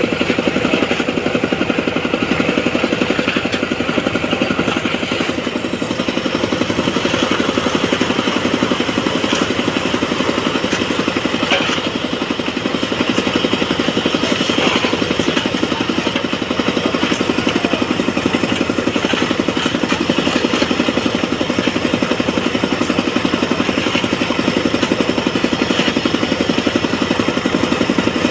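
A construction machine's engine running steadily at a constant speed, with a few faint clanks.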